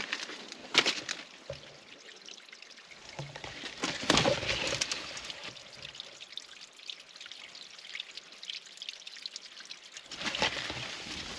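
Water trickling and splashing among stones at the shoreline, with scattered sharp clicks; the loudest comes about four seconds in.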